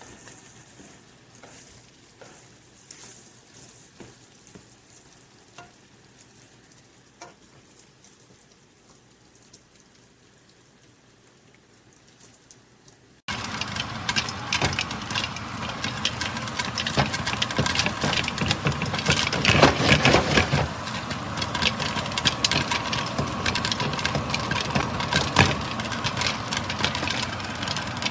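Food frying in a nonstick sauté pan: a faint sizzle at first, then, from an abrupt cut about halfway through, loud and steady sizzling and crackling.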